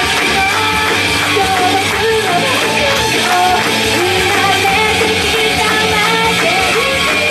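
A woman singing into a handheld microphone over loud rock accompaniment, her melody in held notes that bend up and down.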